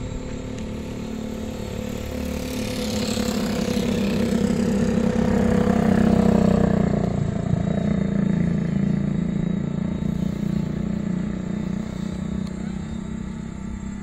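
Motorcycle passing by: its engine grows louder to a peak about six seconds in, drops in pitch as it goes past, then fades, over a steady low hum.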